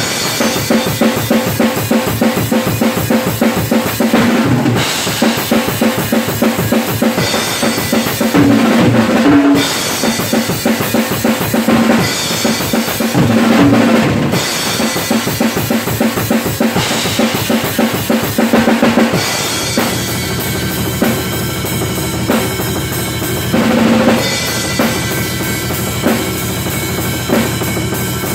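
Acoustic drum kit played hard: bass drum, snare and crash and splash cymbals in a fast groove, broken by a loud tom fill about every four to five seconds. About two-thirds of the way through the playing settles into a lighter, steadier beat.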